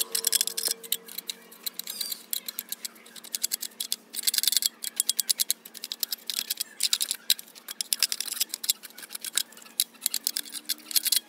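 Small brush scrubbing and scraping crumbled debris out of an old subwoofer's frame, in quick, irregular scratchy strokes. A faint steady hum runs underneath.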